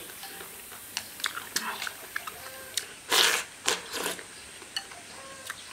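A person eating rice soaked in hot water from a bowl with chopsticks: chewing with small clicks, and a louder slurp about three seconds in, followed by two shorter ones.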